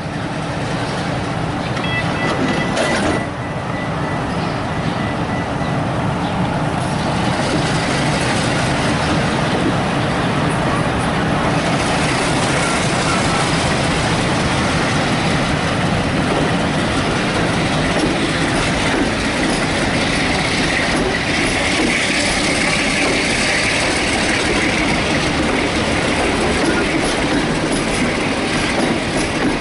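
Passenger train running along the track: steady wheel-and-rail noise that grows louder over the first couple of seconds and then holds.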